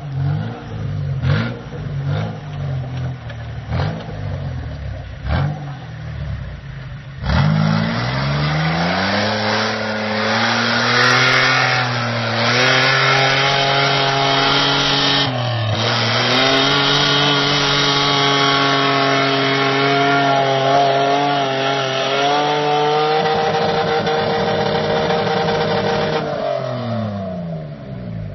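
Mitsubishi Pajero 4x4 engine under load on a steep, muddy off-road climb. For the first seven seconds it runs at lower, unsteady revs with a few knocks. It then revs up sharply and is held high and steady, with a brief dip about halfway through, and the revs drop away near the end.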